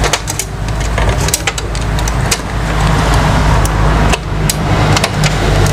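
Irregular sharp clicks and taps of hard plastic printer mechanism parts being handled and fitted into place, over a steady low rumble of road traffic.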